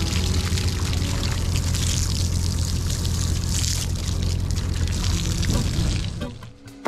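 Water pouring and splashing off a boat's anchor as it is hauled up out of the water, over a steady low mechanical hum. Both stop abruptly about six seconds in.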